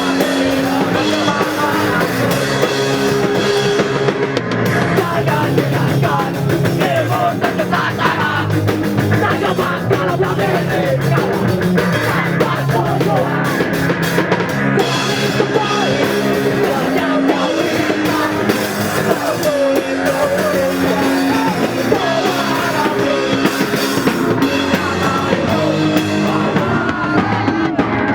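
Rock song playing steadily, with a drum kit and a singing voice.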